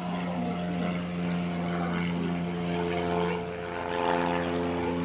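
Steady engine drone of constant pitch, growing louder from about three seconds in.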